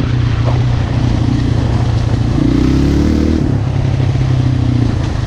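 Yamaha Raptor 125 quad's single-cylinder four-stroke engine running steadily while riding over a gravel trail. The engine note changes briefly in the middle before settling back to a steady pull.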